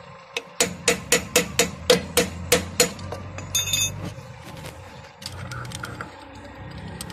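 Hammer strikes on a steel screwdriver held against a truck's wheel hub ring: a run of about ten sharp metallic taps at roughly four a second, each ringing briefly, then a few lighter clicks.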